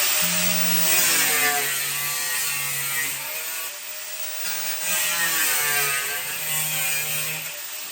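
Power saw cutting through a metal-skinned, foam-core door, its motor pitch rising and falling as it bogs and frees up under load, easing off near the end.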